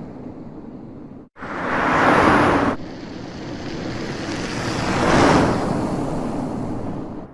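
2007 Toyota Prius hybrid recorded in a string of short clips: a loud rushing burst of the car that cuts off abruptly, then the car passing by, swelling to a peak about five seconds in and fading away.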